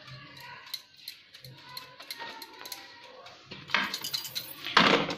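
A silicone spatula scrapes and clicks against a glass mixing bowl as sponge-cake batter is poured into a baking tray. Then the tray is knocked down on the counter twice, loudly, near the end, to settle the batter and knock out large air bubbles.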